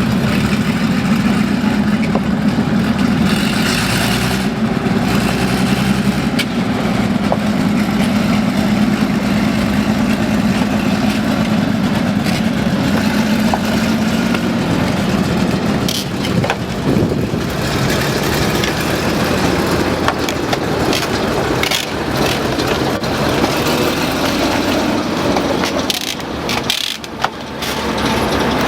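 Panzer IV Ausf. G tank's Maybach HL 120 V12 petrol engine running with a steady low drone. About halfway through, the drone weakens and the sound turns rougher and noisier.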